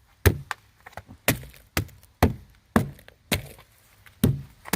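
A tool striking rotten log siding over and over, about two sharp blows a second, each a short knock on wood, as the siding is probed and chopped to find how far the rot goes.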